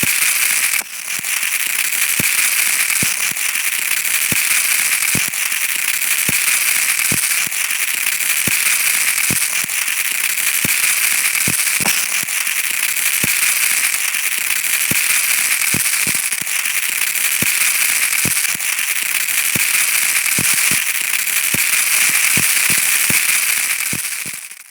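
Continuous loud hissing with many small crackling pops scattered through it. It starts suddenly and fades out near the end.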